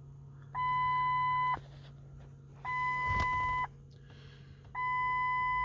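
Electronic warning beep: a steady one-second tone repeating about every two seconds, three times, over a constant low hum. A short low rumble comes about three seconds in.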